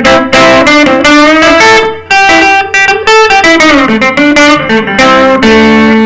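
An electric guitar, a Squier Stratocaster's neck-position Epiphone SG Pro humbucker used in full, is played clean through a Peavey Delta Blues amp fitted with a JBL speaker. It plays a run of quick picked notes.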